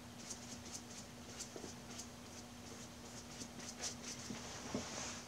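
Faint, soft brush strokes on damp watercolour paper, brushing and ticking now and then, over a steady low hum.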